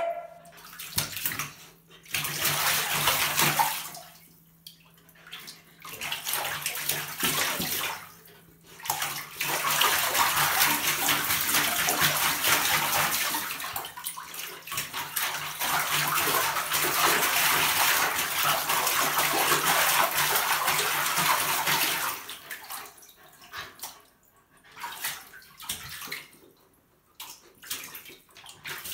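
Shallow bathwater splashing and sloshing as a Samoyed puppy paws and wades in the tub: a few short bouts, then a long stretch of steady splashing lasting over ten seconds, then short scattered splashes near the end.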